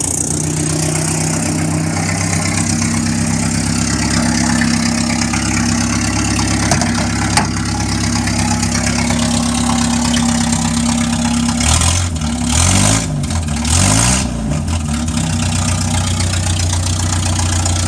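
1961 Land Rover Series II engine running loud with no muffler fitted, just started and still cold on choke. The throttle is blipped twice about two-thirds of the way through, the pitch rising and falling each time, then it settles back to a steady idle.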